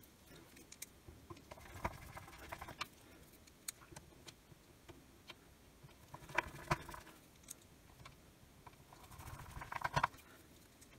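Faint, scattered clicks and light scrapes of a screwdriver and hands working on a plastic radio case, with a small cluster of clicks near the end.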